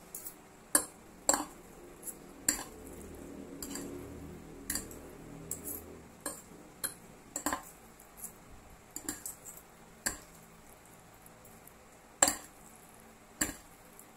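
Metal fork clinking and tapping against a plate at irregular intervals while a large heap of cooked instant noodles is tossed to mix in the seasoning.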